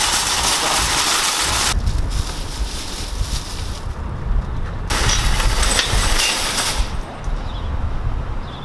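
Shopping cart rolling and rattling across parking-lot asphalt for about two seconds, then a low outdoor rumble with another stretch of rattling noise near the middle.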